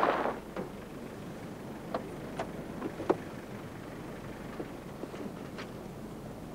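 A van's cab door opening and a worker climbing out: scattered clicks and knocks of the door and handle over a steady low hiss, with a louder thud near the end.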